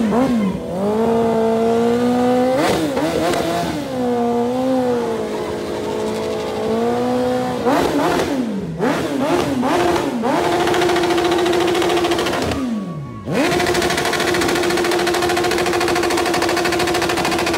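Suzuki Hayabusa sportbike's inline-four engine revved hard while standing. The pitch climbs, holds and falls back several times, sinks low just before 13 seconds in, then jumps straight to a steady high-rev hold with a rapid crackle.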